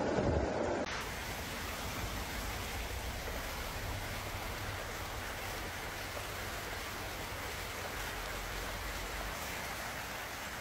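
Steady, even hiss of water, with no distinct events. A louder, duller stretch cuts off abruptly about a second in.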